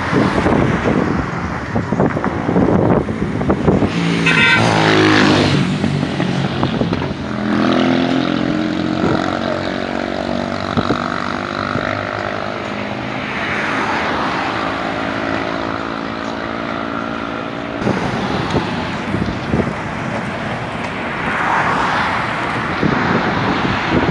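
Motor vehicle engines and road traffic: a vehicle passing with falling pitch about four seconds in, then a steady engine drone that stops abruptly after about eighteen seconds.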